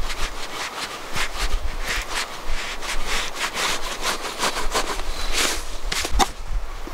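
Hand saw cutting through wood in quick repeated rasping strokes, about three a second.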